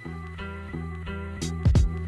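Background music with plucked guitar notes changing in quick succession, with a few loud thumps near the end.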